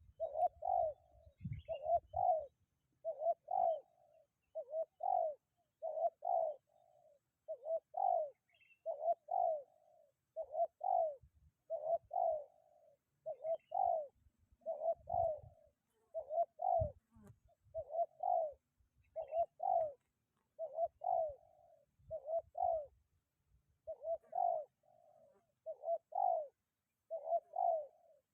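Spotted dove cooing over and over, in short phrases of two or three notes at a steady pace.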